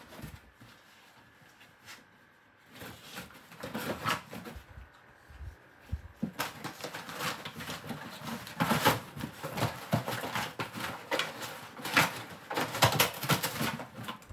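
Dachshund tearing and chewing a cardboard box among crumpled paper: irregular ripping and crackling, faint for the first couple of seconds, then busy and louder from about three seconds in.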